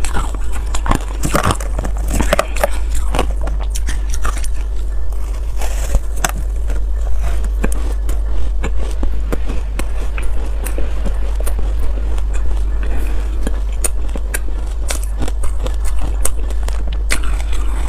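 Close-miked chewing of matcha-dusted ice: dense, irregular crunching and crackling in the mouth, with a steady low hum underneath.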